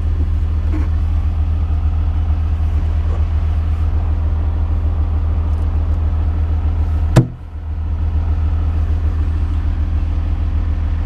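A steady low mechanical drone, like an engine running at idle, with one sharp knock about seven seconds in.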